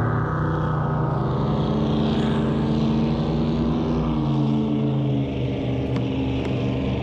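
Motorboat engine droning steadily, its pitch sliding slowly.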